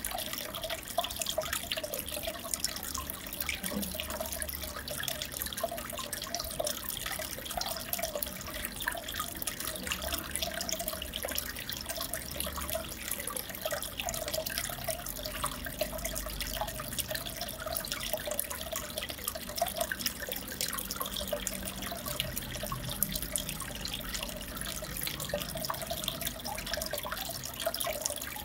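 Aquarium water bubbling and trickling steadily, a dense patter of small splashes and drips.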